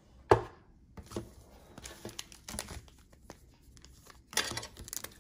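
A single sharp knock about a third of a second in, then scattered small clicks, and from about four seconds in a card pack's wrapper crinkling and tearing as it is opened.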